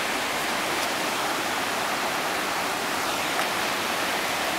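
Floodwater pouring across and over the edge of a paved lot: a steady, unchanging rush of moving water.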